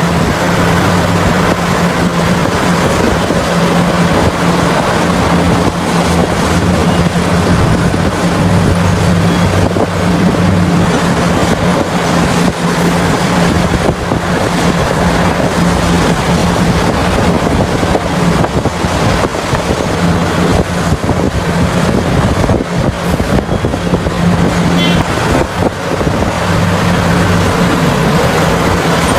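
Large diesel engine of a CAT 6015B mining excavator running steadily under load with a low, constant drone, with wind buffeting the microphone.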